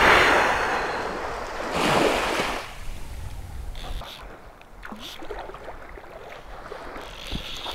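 Water splashing in two loud bursts, one at the start and another about two seconds in, then softer splashing and lapping: a hooked permit thrashing at the surface of the shallow flat.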